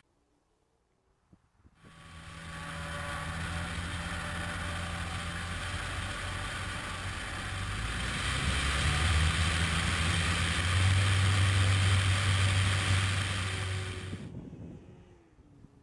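Wind rush and the steady hum of a 50% scale J-3 Cub's electric motor and propeller, heard from a camera mounted on the aircraft. It comes in after a brief near-silent gap, grows louder, and cuts off suddenly near the end.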